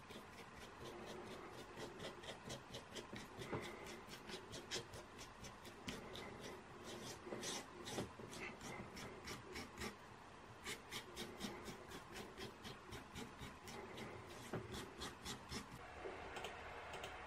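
Bristle paintbrush dabbing and scrubbing acrylic paint onto a primed board: a faint, quick run of short scratchy strokes, several a second.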